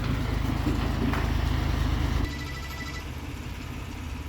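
Heavy diesel engine running with an even low throb, dropping sharply in level about two seconds in and running on more quietly.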